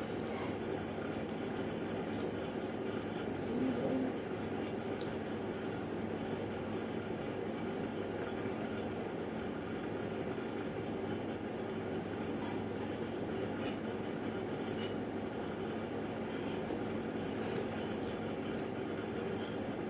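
Steady background hum of room noise, with a few faint clicks and a short, louder sound about four seconds in.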